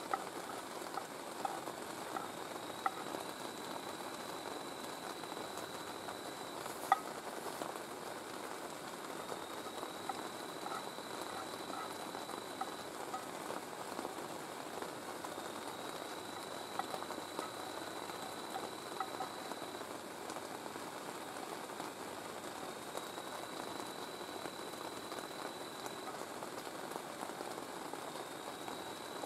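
Steady rain falling on the tent, with a spoon clicking and scraping against a metal pan now and then, one sharper click about a quarter of the way through. A thin high tone comes and goes every few seconds.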